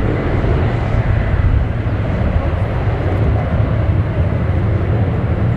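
Boeing 767's twin jet engines running loud and steady at take-off thrust as the airliner rolls down the runway, a deep rumble with a rushing hiss above it.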